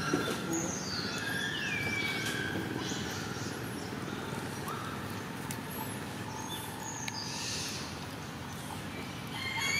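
A few high animal calls that slide down in pitch, with scattered short chirps, over a steady outdoor background hiss.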